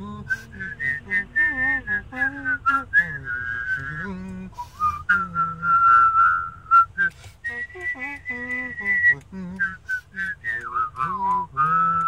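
A person whistling a Japanese train on-board chime melody, with their voice sounding a lower line alongside the whistle and short clicks between the notes.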